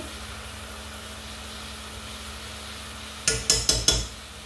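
Filet mignon searing in a pan over high heat, a steady sizzle. About three seconds in, a metal spoon taps the pan four times in quick succession.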